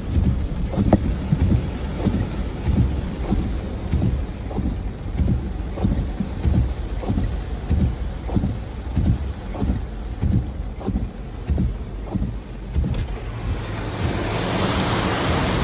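Heavy rain drumming on a car's roof and windshield, heard from inside the cabin, with many uneven low knocks. A louder rushing hiss swells near the end.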